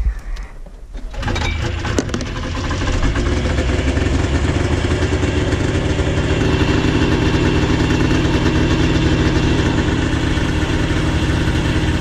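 Yamaha Enticer two-stroke snowmobile engine starting: it catches about a second in, then runs steadily at a fast idle.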